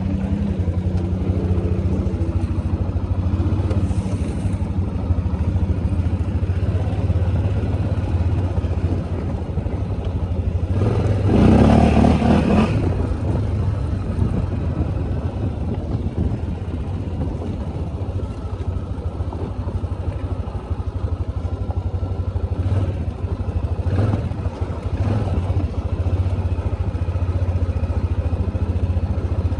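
ATV engine running steadily under way on a trail. About eleven seconds in, a louder rush of noise swells for a couple of seconds, and a few short knocks follow later.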